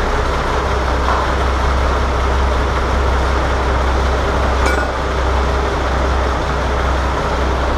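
MAN D2866LF inline-six turbo diesel idling steadily on its first start after a rebuild, with a deep, even hum. There is a short click about halfway through.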